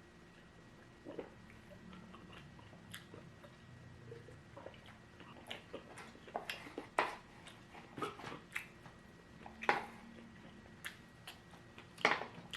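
A person chewing and biting food close to the microphone, with irregular sharp crunches and clicks. These get busier and louder from about halfway, and the loudest crunches come near the end.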